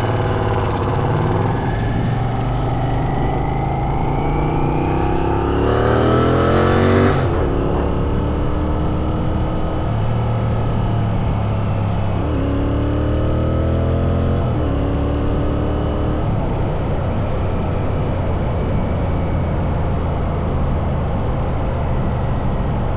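Royal Enfield Continental GT 650's parallel-twin engine accelerating through the gears: it revs up and shifts about seven seconds in, pulls again and shifts twice more around the middle, then holds a steady cruise.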